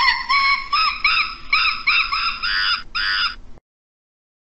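A primate calling: a quick series of short, high, arching calls, about two a second, that stops abruptly.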